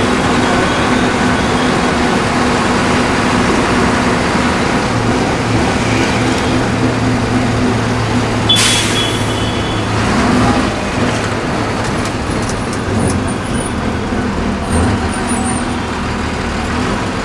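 Steady engine hum and road noise heard from inside a moving vehicle, with a short sharp hiss about eight and a half seconds in.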